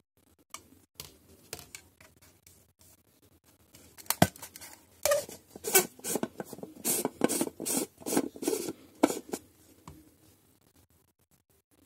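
Plastic tumbler and its dome lid being handled: a sharp click about four seconds in, then a run of rubbing, scraping and clicking as the lid is worked off the cup.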